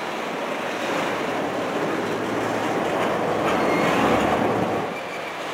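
Crude oil tank cars of a unit train rolling past, a steady rumble and rattle of steel wheels on the rails.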